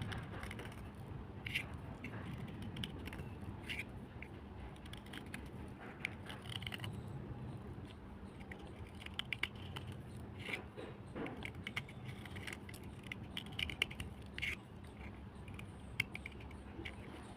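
Hard black slate or clay cubes crunching and clicking, in scattered sharp cracks at an uneven pace over a low steady rumble.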